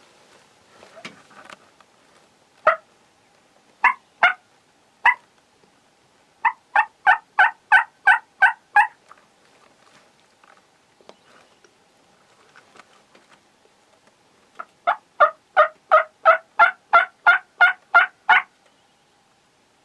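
Wild turkey hen yelping: a few single yelps, then a run of about nine yelps at roughly four a second, and later a longer run of about fourteen. No gobbling.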